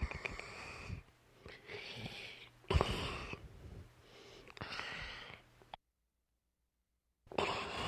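Dog snoring loudly: a run of noisy, rasping breaths, one about every second and a half. Near the end the sound drops out to dead silence for about a second and a half, then resumes.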